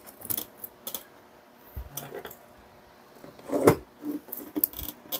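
Scattered light clicks and knocks of plastic drill housing parts and small components being handled and fitted on a wooden workbench, with one louder knock about two thirds of the way through.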